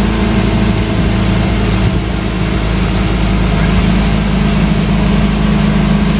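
Johnson outboard motor running steadily at speed as the boat planes, a constant low hum under a loud rush of wind and water.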